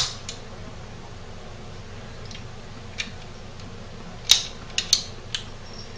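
Metal clicks of a Rock Island Armory Compact 1911 pistol being handled, unloaded: a faint click about three seconds in, then several sharper clicks close together between about four and five and a half seconds.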